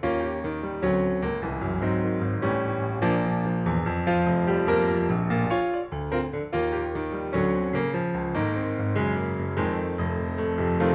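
Background piano music, a steady flow of struck notes and chords.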